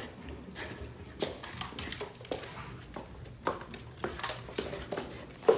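Irregular clicks and taps of an Australian Shepherd's claws on a hardwood floor as the dog jumps and moves about.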